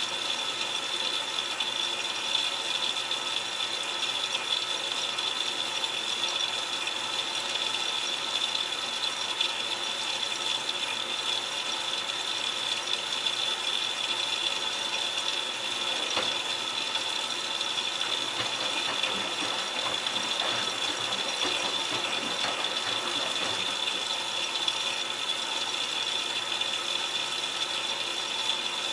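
Miele Touchtronic W3033 front-loading washer on its delicate cycle: a steady rush of water spraying and splashing inside the drum, with light irregular rattling and knocks.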